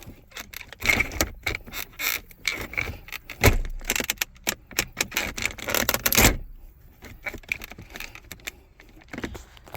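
Flathead screwdriver prying and scraping at the plastic clips of a 2006 Ford F-150's center console cup holder insert: many small clicks and rattles, with two louder knocks about three and a half and six seconds in.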